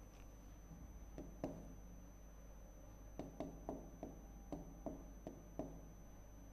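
Fingertip taps on a touchscreen's on-screen keyboard while typing: two taps a little after a second in, then a quicker run of about nine taps from about three seconds in, over a faint steady hum.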